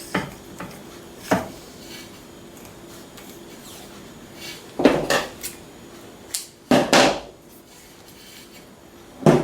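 Handling of aluminium telescopic pole sections and their parts: a scattering of short metallic clinks and knocks a second or more apart, with closer pairs around the middle and toward the end.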